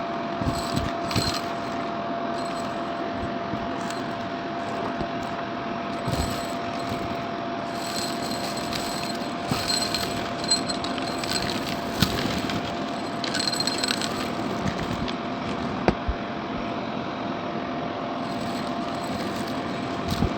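Shark vacuum cleaner running steadily with a constant whine, with scattered clicks and crackles of gritty debris being sucked up.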